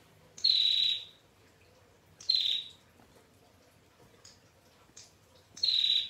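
Caged female prenjak (prinia) giving its rattling 'ngetir' call: three short, buzzy trills of about half a second each, the first about half a second in, the second about two seconds in, and the third near the end.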